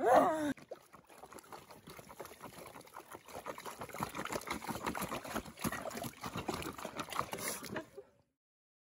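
A short, loud, high cry from a girl, then several seconds of a faint trickling, crackling noise that stops abruptly about eight seconds in.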